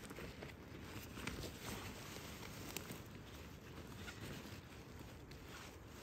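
Faint footsteps and rustling, with a few scattered soft crackles.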